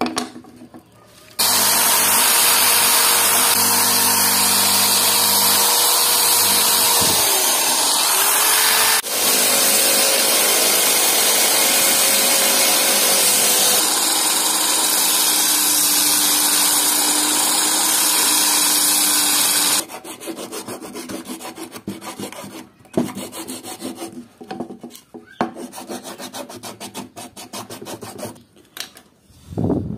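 Motor-driven sanding disc running loud and steady as a wooden saw handle is sanded against it, its pitch sagging briefly about seven seconds in. It stops about twenty seconds in, followed by quick, irregular strokes of a hand file rasping the wood.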